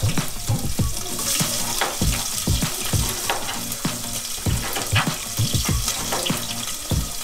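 Squash and potato curry vegetables sizzling as they fry in hot oil in a pan. A spoon knocks and scrapes against the pan again and again as the mixture is stirred.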